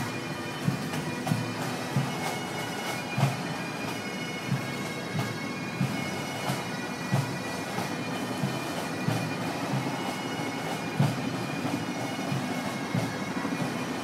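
Marching pipe band: bagpipes playing a steady tune over their drones, with a drum beat thumping about three times every two seconds.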